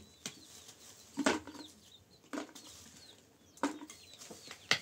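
Five sharp knocks, roughly one a second, as of something being chopped or struck, with faint high chirps between them.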